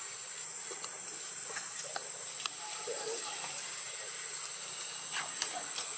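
Steady background hiss with a constant high-pitched insect drone, and a few faint clicks.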